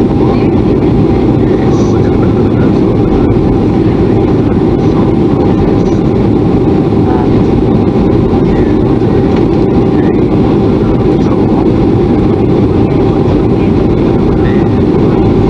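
Steady in-flight cabin noise of a Boeing 737-400, heard from a seat beside the wing: the CFM56-3 turbofan and the rush of air over the fuselage, a constant low rumble with a faint steady tone on top.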